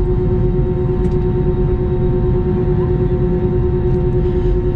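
Airbus A321 jet engines at takeoff power on the takeoff roll, heard inside the cabin: a loud, steady rumble with a steady whining tone over it.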